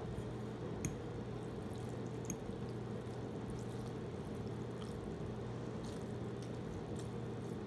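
A few faint, separate clicks of a metal fork against the bowl as ramen noodles are stirred and picked up, over a steady low hum.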